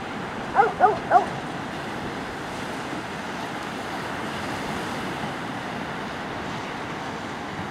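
Ocean surf breaking steadily on a sandy beach. About half a second in come three short, sharp calls in quick succession, louder than the surf.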